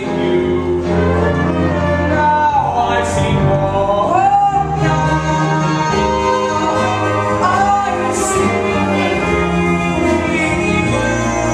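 Musical-theatre song: singing in long held notes that glide slowly between pitches, over a steady instrumental accompaniment.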